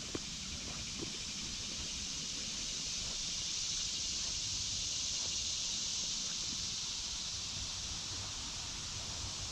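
A steady, high-pitched chorus of cicadas droning without a break, over a low rumbling noise, with a couple of light snaps near the start.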